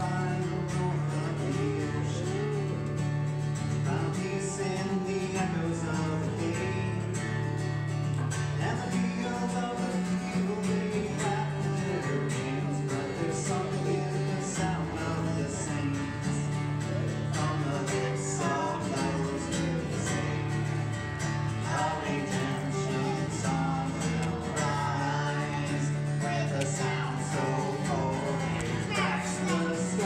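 Acoustic guitar strummed in steady chords while a man sings a song over it.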